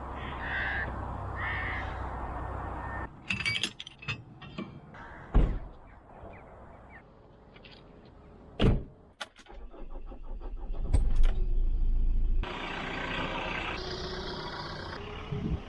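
Car sounds cut together: two short beeps about a second apart over a low rumble, then keys jangling with clicks and knocks, and later a car running with a steady rumble.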